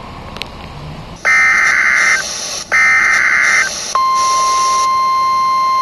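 Electronic alert tones over a news logo sting: two loud buzzing bursts of about a second each, then a long steady beep from about four seconds in. About a second of even outdoor noise comes before them.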